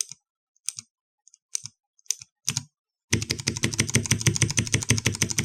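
Cherry MX Blue key switch on a switch tester pressed several times, each press a sharp click from the switch with a low knock as the key bottoms out on the base. About three seconds in it is pressed rapidly, a fast run of clicks at more than ten a second.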